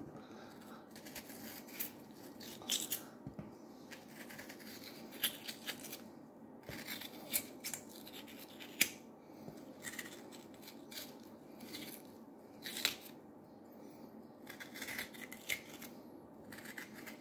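Raw potato being hollowed out by hand, its flesh scraped away in irregular short scrapes and light clicks, with the scrapings dropping into a stainless steel saucepan.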